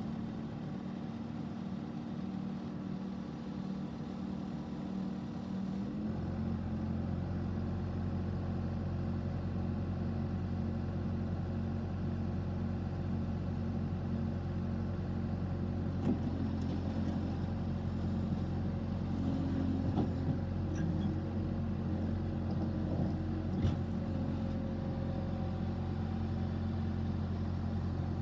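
Case TR320 skid steer loader's diesel engine running steadily. About six seconds in, the engine note deepens and grows a little louder, and a few light knocks follow later.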